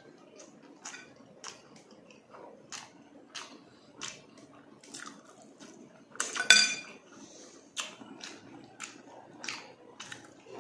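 Close-miked wet chewing and lip-smacking in a steady rhythm, somewhat under two smacks a second. About six and a half seconds in, a fork clinks loudly against a dish and rings briefly.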